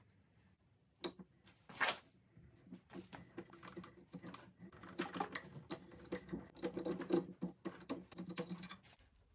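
Quiet, irregular small metal clicks and scraping as a hand tap in a T-handle tap wrench is worked into a metal stand fitting clamped in a bench vise, re-cutting a stripped thread for a helicoil insert. A few separate clicks in the first couple of seconds, then a busier run of ticking from about halfway in.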